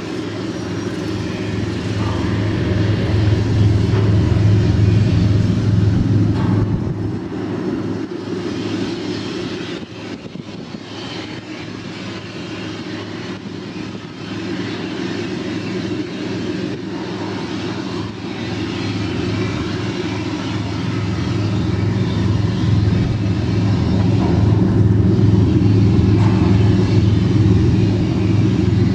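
Customs patrol boat's engines running at speed: a steady low drone with a hiss over it, swelling, easing off around a third of the way in, then building again toward the end.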